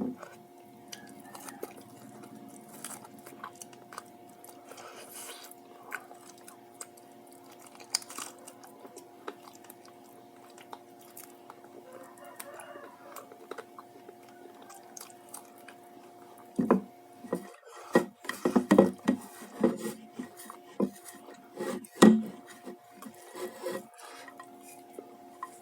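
Eating sounds: quiet chewing and rustling handling of fried chicken and tofu, with a run of louder clicks and knocks against the plate about two-thirds of the way in.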